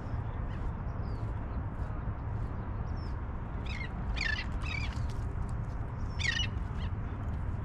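Birds calling: scattered short, high, falling chirps, with louder harsh squawks about four seconds in and again about six seconds in, over a steady low rumble.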